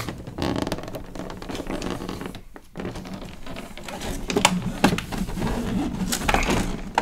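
Large clear plastic blister tray being slid out of its box and handled, plastic rubbing and scraping, with several sharp clicks and taps in the second half.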